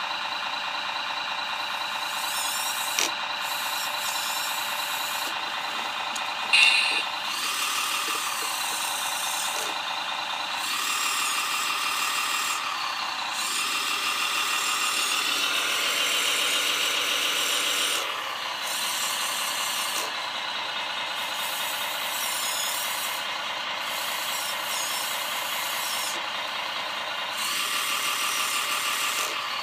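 Drive motors of a homemade RC excavator chassis turning roller chains, sprockets and plastic tracks: a steady whine over a chain-and-track rattle. The pitch and level shift every few seconds as the speed or direction changes, with a sharp clack about six and a half seconds in.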